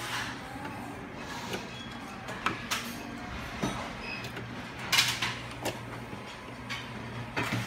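Scattered light clicks and taps as a soldering iron and a thermistor's wire leads are handled against a 3D-printer heated bed and its connector pins, while the thermistor is being soldered on. The loudest tap comes about five seconds in, over a steady low hum.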